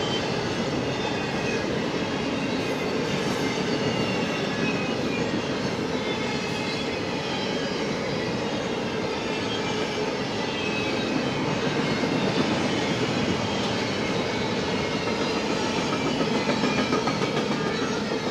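Double-stack intermodal well cars of a freight train rolling past on the rails: a steady, unbroken rumble and clatter of steel wheels on track.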